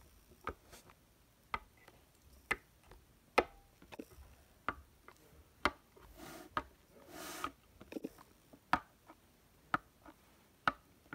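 Plastic Littlest Pet Shop figure hopped along a hard surface by hand, tapping down with each step about once a second, with a short soft rubbing sound midway.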